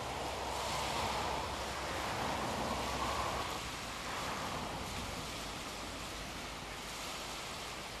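Small waves breaking and washing over a pebble shore: a steady rushing that swells and eases, a little louder about a second in and again about three seconds in.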